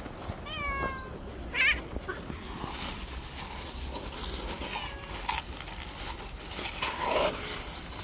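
Cats meowing several times: a falling meow about half a second in, a louder wavering cry soon after, then fainter meows near the middle and another near the end.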